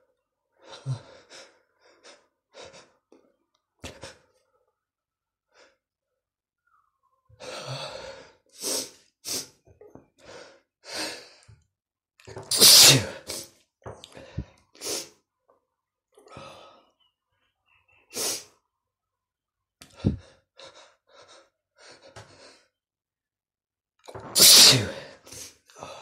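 A man sneezing repeatedly in a sneezing fit, with shorter breathy gasps in between; the two loudest sneezes come about halfway through and near the end.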